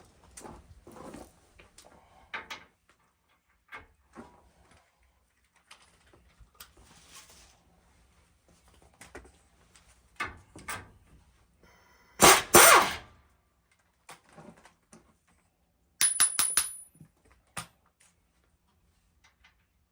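Metal hand tools clinking and knocking on the truck's steering parts while the tie-rod nuts come off. A loud rattling burst comes about twelve seconds in, and a quick run of sharp clicks follows around sixteen seconds.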